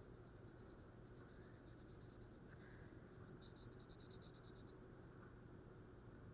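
Felt-tip marker scribbling quickly back and forth on the edge of a sticker, faint scratchy strokes several a second. There are two runs of strokes, the second starting about three and a half seconds in.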